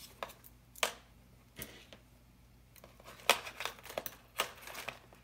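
Handling noise from a small hobby servo and its wires being worked by hand: scattered sharp clicks and taps with short rustles, one click about a second in and a busier cluster from about three seconds.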